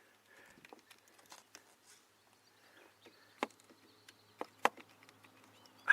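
Faint clicks and taps of a test light probe and wiring being handled, with a few sharper ticks from about three and a half seconds in and one near the end. A faint high steady tone sounds between about three and five seconds.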